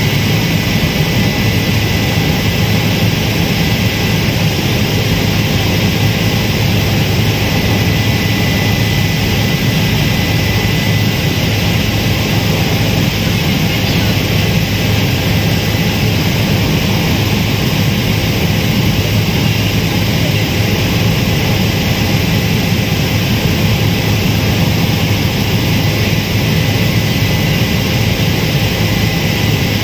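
Helicopter in cruising flight heard from inside the cabin: a loud, steady engine and rotor noise with a thin high tone held on one pitch throughout.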